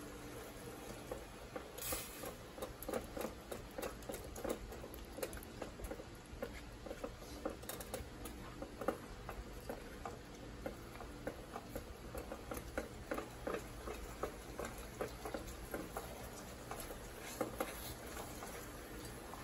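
Thick soy-and-honey sauce thickened with cornstarch slurry, bubbling in a pot with fried chicken pieces while it is stirred with a spatula: a faint, steady run of small irregular pops and ticks.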